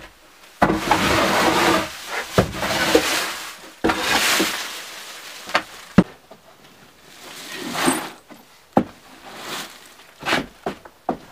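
Rustling and scraping of an old sack, rags and a plastic bag being gathered up and dragged across the floor, in several bursts, with a few sharp knocks between them, the sharpest about six seconds in.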